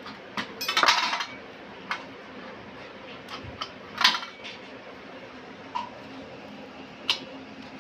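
Hands working dough on a stainless steel plate, knocking against the metal in scattered sharp clinks and taps, a little cluster about a second in and the loudest about four seconds in.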